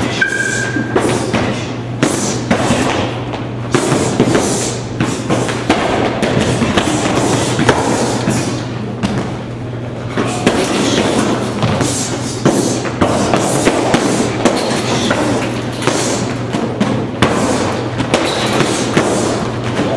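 Gloved punches and kicks landing irregularly on hanging heavy punching bags, a rapid stream of thuds, with music playing throughout.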